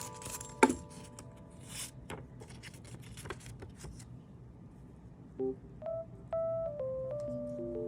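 Packaging being handled: scattered scraping and rustling with a sharp click about two-thirds of a second in. From about five and a half seconds, soft background music of plain, beep-like synth notes playing a simple melody.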